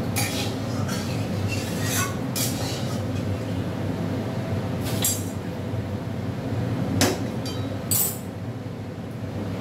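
Steel tongs and utensils clinking and knocking against steel pans on a gas stove, a handful of sharp clinks spread through, the loudest about seven seconds in, over a steady low hum.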